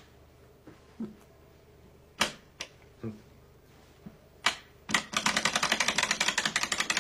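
Mechanical clicking: a few separate sharp clicks, then about five seconds in a fast, even run of loud clicks, about ten a second.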